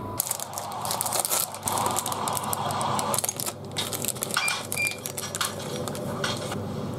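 Thin plastic food wrapper crinkling and crackling as a packaged bread roll is opened and pulled out of it by hand, starting about a quarter second in.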